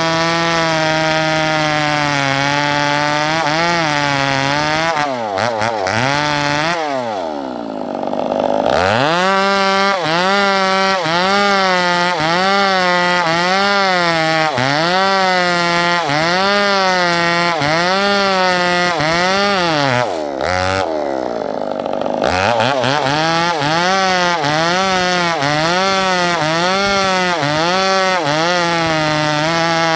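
Two-stroke chainsaw rip-cutting a log lengthwise into planks. The engine's pitch sags and recovers about once a second as the chain bites into the wood. Twice the throttle is let off and the engine drops low before revving back up to cut.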